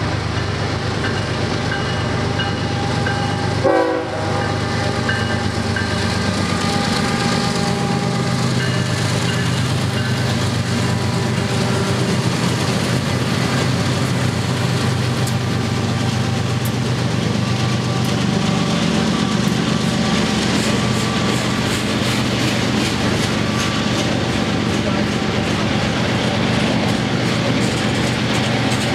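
BNSF diesel freight locomotives running as they pass close by, followed by the steady clickety-clack of freight cars, a covered hopper and tank cars, rolling over the rails.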